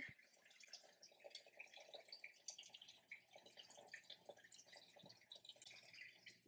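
Near silence: faint room tone with light, irregular crackle.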